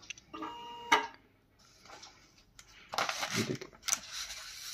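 Cutting plotter's carriage motor running briefly with a steady electric whine, ending in a sharp click about a second in. Later, paper rustles and slides as a sheet is pressed flat onto the plotter bed.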